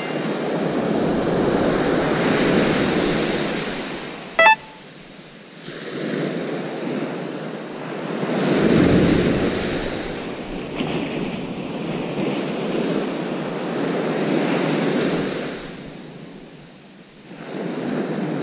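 Small waves breaking and washing up a sandy beach, the surf swelling and fading in several surges, with some wind on the microphone. A short, bright chime sounds once about four and a half seconds in.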